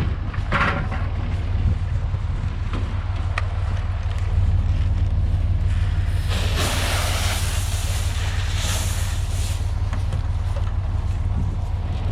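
Tractor engine running steadily at a low, even pitch. A hissing rush of noise comes in for about four seconds midway.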